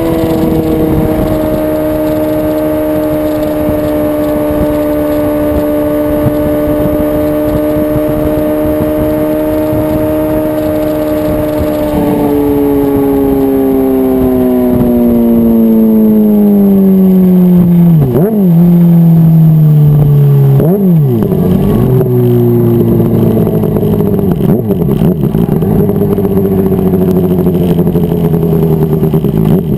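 Honda CBR600RR inline-four engine at a steady cruising pitch, then revs falling as the bike slows from about twelve seconds in. Twice, a few seconds apart, the revs dip sharply and pick up again as it shifts down, before settling into lower, steady running.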